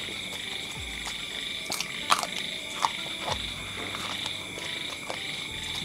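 Frogs calling in a steady, unbroken chorus from a swamp. A few sharp clicks and smacks of eating by hand sound over it, the loudest about two seconds in.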